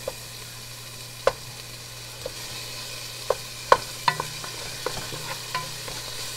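A wooden spoon stirring and mashing tomatoes, garlic and onion in a pan, with irregular knocks and scrapes of the spoon against the pan over a steady sizzle of frying, the loudest knock a little past halfway.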